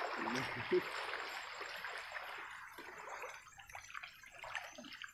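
Shallow water sloshing and trickling around a small boat's hull and a person wading beside it, loudest at first and fading toward the end.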